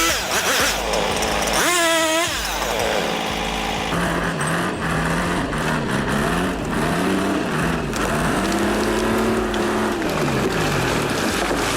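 An engine revving up and down over and over. There is one sharp rev about two seconds in, then repeated swells in pitch over a steady rushing noise.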